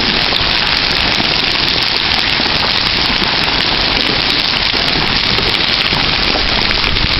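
Large hailstones, most of them softball-sized, pelting down hard with no rain: a dense, steady patter of countless impacts.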